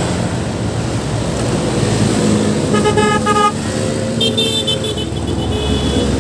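Steady road traffic running past close by. Vehicle horns honk twice: a short blast about three seconds in, then a longer, higher-pitched honk about a second later.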